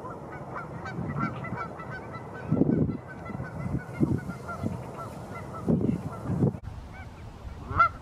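Canada geese honking in a rapid series of short calls, with one louder honk near the end. Strong wind gusts buffet the microphone now and then.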